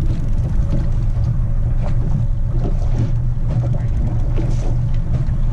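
Boat motor running steadily: a low, even hum.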